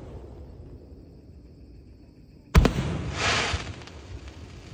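5-inch aerial firework shells bursting with one sharp bang about halfway through, followed by a short hissing crackle from the crackling stars.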